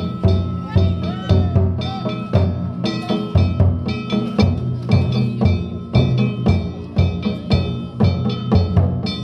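Danjiri festival music: a big taiko drum beaten in a quick steady rhythm, about two to three strikes a second, with small hand gongs (kane) clanging over it.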